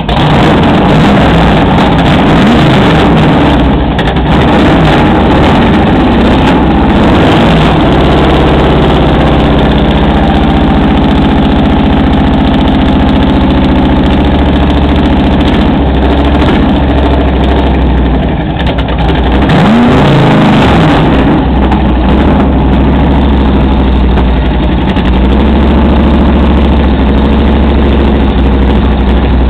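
Cheetah race car's V8 engine idling loudly through its open velocity-stacked carburettors, with short revs a couple of seconds in and again about two-thirds of the way through.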